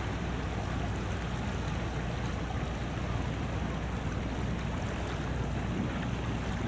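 Steady outdoor noise by the sea: wind on the microphone with a low rumble and no distinct tones.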